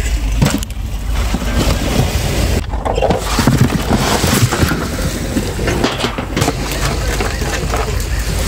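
Wind rumbling on the microphone at the shore, with indistinct voices in the background.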